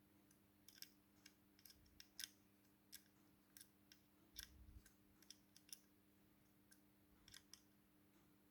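Faint, irregular small clicks and ticks of plastic and metal RC car parts being handled and fitted together during assembly, over a faint steady hum.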